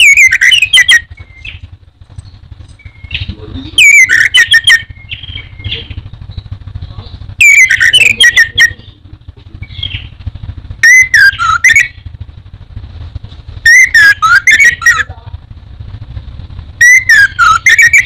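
Caged orange-headed thrush singing: loud phrases of sliding whistled notes mixed with sharp clicky notes, about one every three to four seconds, six in all. A low steady hum runs underneath.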